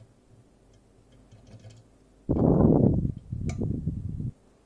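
Faint, scattered clicks of lock-picking tools working the levers inside a Fichet-Bauche M3B lever lock, then a loud, low rustling noise lasting about two seconds, with one sharp click in it.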